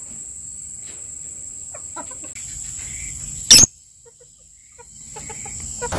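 Rural outdoor ambience: chickens clucking in short scattered calls over a steady high-pitched insect drone. A single sharp, very loud burst comes about three and a half seconds in.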